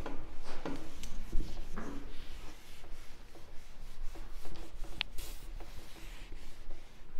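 Irregular rubbing and scratching strokes on a whiteboard as it is erased and drawn on, with one sharp tick about five seconds in.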